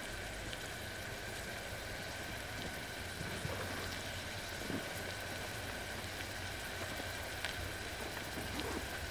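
Chopped red onions frying in a stainless steel pot on a portable gas stove: a steady sizzling hiss, with a few faint clicks.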